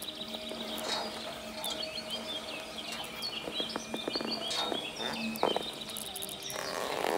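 Ambient soundscape: rapid bird-like chirps and twitters over a steady low drone, with scattered clicks.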